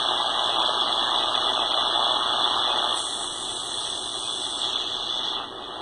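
Shortwave radio receiver's speaker hissing with static, with a strong high-pitched band in the hiss. The static drops in level about three seconds in and again near the end: the dip meter's oscillator is being tuned onto the radio's frequency, and its carrier is quieting the noise.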